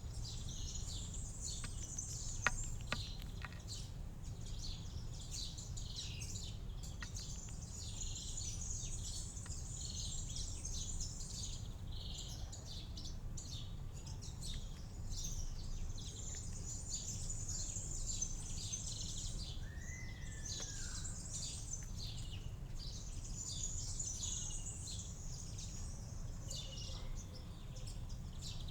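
Many small birds chirping and twittering in a dense, continuous high-pitched chorus over a steady low background rumble, with a single sharp click about two and a half seconds in.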